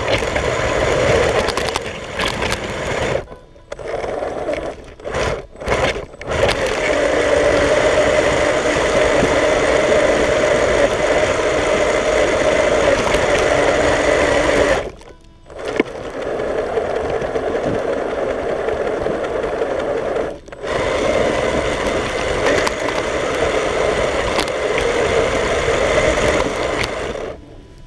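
Radio-controlled car's motor and gears running hard with a steady whine as it drives a snow-shovel blade through snow. The whine cuts out about three seconds in, stops and starts a few times just after, stops again for about a second near the middle, briefly again a little later, and cuts off near the end.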